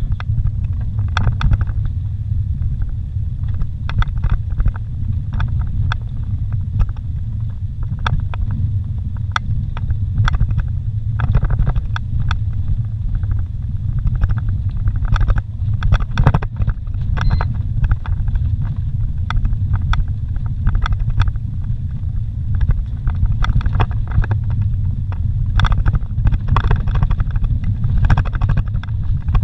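Vehicle driving over a rough dirt road, heard from inside the cabin: a steady low rumble of engine and tyres, with frequent short knocks and rattles as it rolls over bumps and stones.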